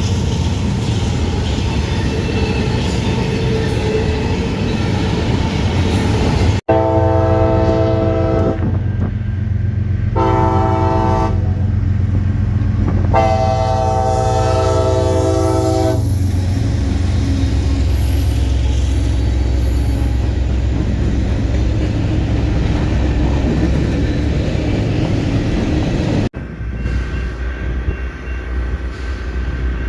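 Train rolling past with a steady heavy rumble, then a locomotive air horn sounds a chord in three blasts, long, short, long, over the low drone of the locomotive's engine.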